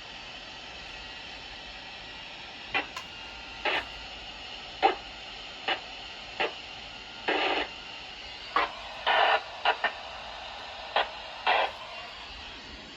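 Radio receiver hiss with no programme audio, broken by about a dozen short, irregular bursts of static starting about three seconds in.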